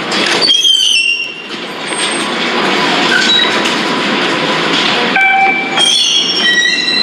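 MBTA rail train running through a station. Its wheels squeal in several high, shifting tones over the steady rumble of the cars, once about half a second in and again through the last two seconds.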